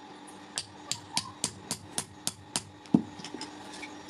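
Hammer blows on a handled forging tool held against red-hot steel on an anvil: a quick run of about eight metallic strikes at roughly four a second, then a heavier, duller blow about three seconds in and a few lighter taps.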